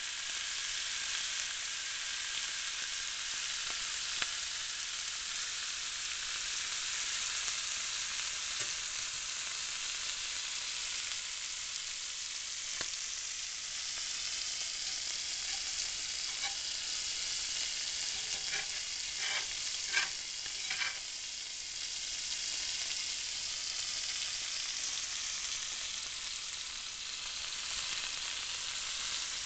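Beef steak frying in a hot cast iron grill pan, a steady sizzle. A few light clicks come about two-thirds of the way through.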